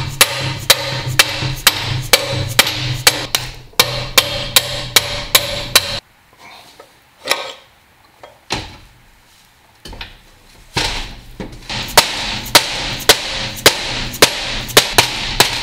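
A soft hammer repeatedly strikes the output shaft of a Dana 20 transfer case, tapping it rearward to drive the bearing cup out of the case. There are rapid blows, about three a second, then a pause of a few seconds with only a couple of stray knocks, and the hammering resumes for the last few seconds.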